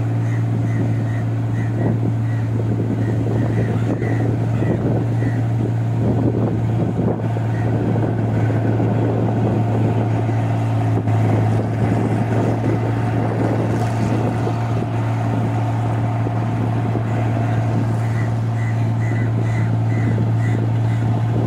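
Combine harvester's diesel engine and threshing machinery running steadily under load while harvesting rice, a constant deep drone. A short high chirp repeats two or three times a second early on and again near the end.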